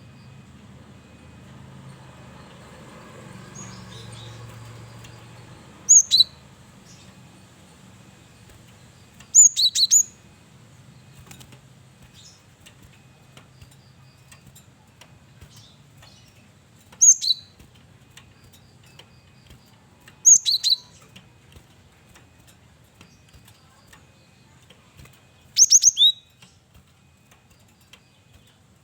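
A male cinereous tit (gelatik batu) singing short phrases of two or three clear, high whistled notes, each phrase dropping in pitch. Five phrases come several seconds apart, with a faint low hum between them.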